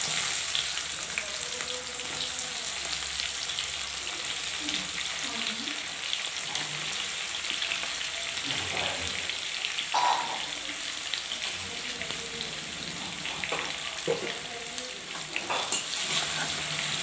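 Chopped onions sizzling in hot mustard oil in a kadai, a steady frying hiss, with a few clicks and scrapes of a metal spatula against the pan as they are stirred.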